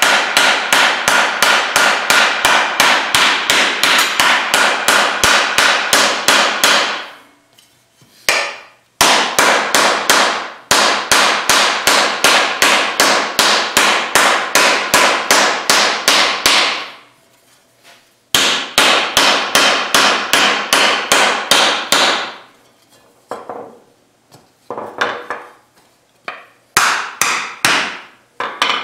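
Blue teardrop shaping mallet beating 16-gauge cold-rolled steel sheet down into a sandbag, roughing in a fender shape: rapid, even blows about four or five a second in long runs, with brief pauses and shorter bursts of blows near the end.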